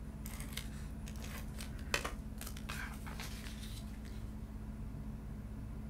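Cardstock being handled and pressed down by hand: a few soft rustles and light taps in the first three seconds, one sharper tap about two seconds in, over a steady low hum.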